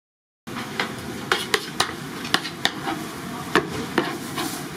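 Fish cakes frying in hot oil, a steady sizzle that cuts in abruptly about half a second in, with a dozen or so sharp, irregular clicks and taps over it.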